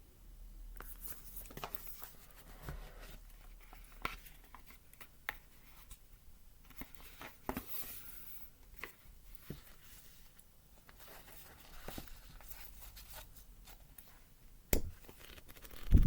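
Packaging of a tarot deck being opened and handled: paper and wrapping rustling and tearing, with irregular small clicks and taps and one sharp tap near the end.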